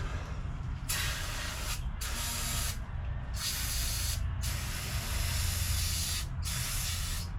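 Aerosol can of brake cleaner sprayed in about five short hissing bursts onto rusty, seized bolt threads to loosen them.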